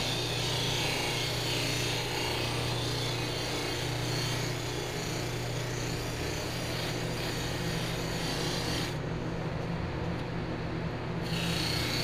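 Electric bench buffer running with a steady motor hum while a stainless steel trim strip is pressed against its rouge-loaded buffing wheel, giving a continuous rubbing hiss. The rubbing stops for about two seconds near the end as the strip is lifted off, while the motor hums on, then it starts again.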